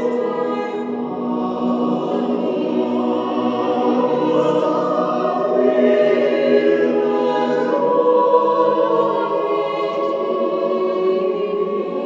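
Mixed choir of men's and women's voices singing a carol a cappella in sustained, slow-moving chords.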